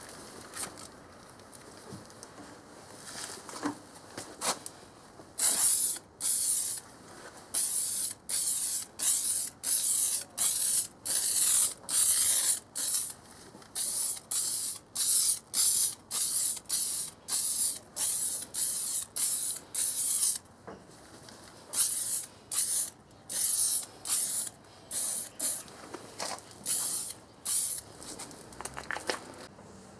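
MIG welder stitch-welding thin 0.8 mm steel sheet in short pulses, about one a second: each arc crackles and hisses for well under a second. Short pulses like these keep heat down so the thin panel does not burn through.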